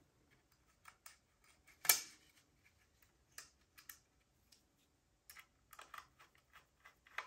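Small metallic clicks and ticks of a screwdriver and tiny screws as the drive bracket is screwed onto a laptop SSD, with one sharper click about two seconds in and a quick run of clicks near the end.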